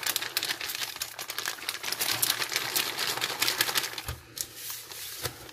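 Green plastic MRE flameless-ration-heater bag crinkling as it is folded closed by hand: a dense run of quick crackles that thins out about four seconds in.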